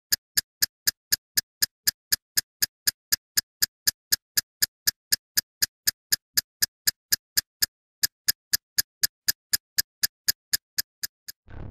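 Steady, even ticking, about four sharp ticks a second with one skipped beat about eight seconds in. Music with a beat starts right at the end.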